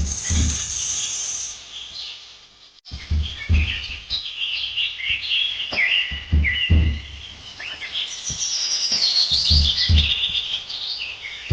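Birds chirping and twittering, with low thumps, often in pairs, every few seconds and a brief break about three seconds in.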